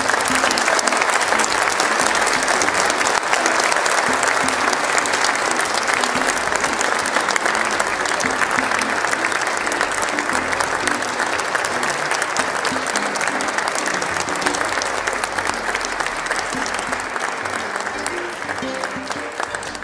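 Audience applauding, a dense steady clapping with music playing underneath; it dies down near the end.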